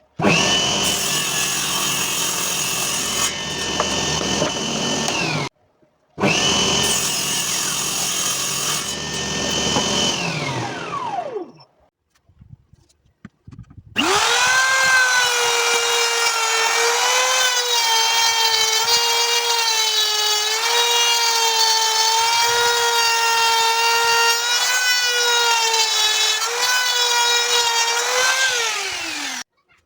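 Homemade table saw driven by two 12 V 775 DC motors, its blade running with a high whine, in three separate runs. During the last, longest run the pitch dips and recovers repeatedly as wood is sawn. The motors wind down with a falling whine at the end of the second and third runs.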